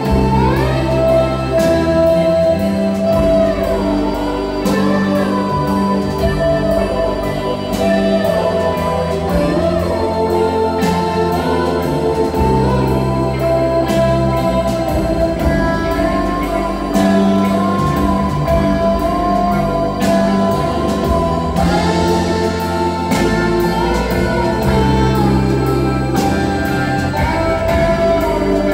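Live rock band playing, heard from the audience: electric guitars with keyboards, bass and drums, sustained notes and a steady beat.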